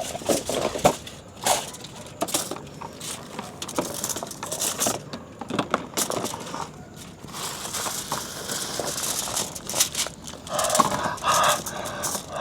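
Crinkling and crushing of plastic food packaging being handled, with many irregular clicks and rustles and a longer burst of rustling near the end.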